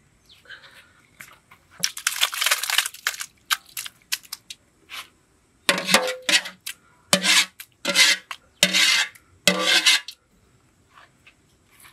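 Metal ladle scraping cooked onion-tomato masala out of an aluminium pot into an iron kadai. A longer spell of scraping comes about two seconds in, then a quick run of about six short scrapes, each with a metallic ring from the pot.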